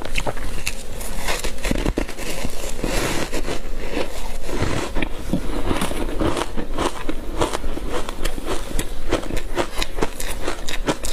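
Close-up biting, crunching and chewing of frozen matcha powder ice, a dense run of crackling crunches with no pause.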